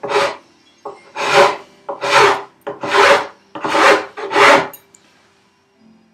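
A hand file or rasp shaping wood in about five long push strokes, roughly one a second, which stop about three-quarters of the way through: fairing the contours of an opening cut to fit a vise.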